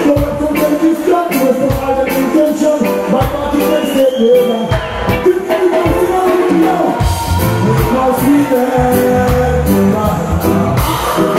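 Live band music played loud through a PA: a singer over drums, bass guitar and keyboard, with a steady beat. The deep bass grows stronger about seven seconds in.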